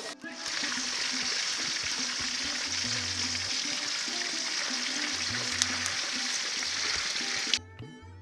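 Chicken pieces sizzling in hot oil, a steady hiss that cuts off suddenly near the end. Background music with low repeated notes plays under it.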